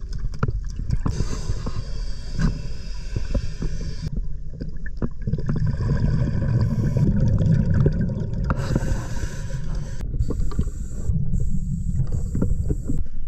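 Scuba diver breathing underwater through a regulator: a hissing inhalation, then a low bubbling rumble of exhaled air, alternating every few seconds.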